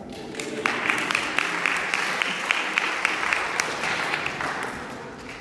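Audience applauding: many hands clapping, starting about half a second in and fading near the end.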